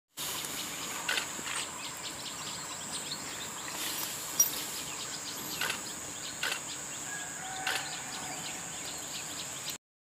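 Short, high chirps of pin-tailed parrotfinches, about half a dozen scattered calls, over steady outdoor background noise with a constant high-pitched whine. The sound cuts off abruptly just before the end.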